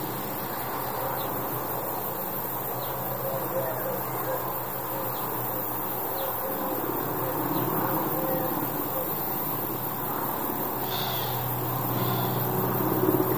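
Steady low drone of a distant firefighting helicopter under outdoor background noise, with a few short bird calls now and then.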